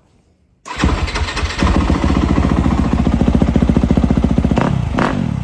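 Yamaha YZ250F dirt bike's 250 cc single-cylinder four-stroke engine firing up suddenly about a second in, then running loud and rapid, with a few quick throttle blips near the end.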